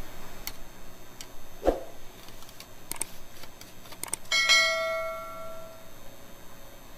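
A long knife and a steel ruler clicking and knocking against metal, with a duller knock near the two-second mark. About four seconds in, a clear metallic ring, steel struck on steel, fades out over about a second and a half.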